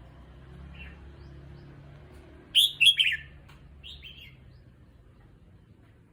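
Red-whiskered bulbul calling: a loud burst of three quick, sharp notes about two and a half seconds in, then a softer two-note phrase a second later.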